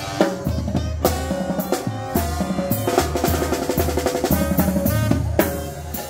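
Oaxacan brass band playing live. A bass drum with a cymbal mounted on top, a snare and timbales drive a steady beat under trumpets, trombones and clarinets.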